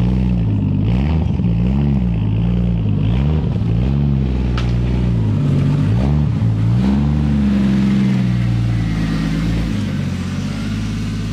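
Toyota Supra MK3's turbocharged 7M-GTE inline-six running as the car rolls slowly past. The engine is blipped so that its note rises and falls about six times, then holds steadier and settles lower near the end.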